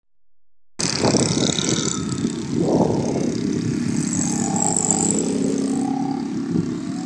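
Road traffic, the engines of cars and motorcycles driving past, with one passing vehicle swelling louder about three seconds in.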